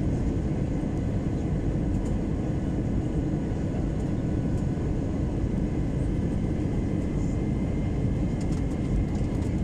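Airliner cabin noise during descent on approach: a steady low rush of the engines and airflow, with faint steady whining tones above it.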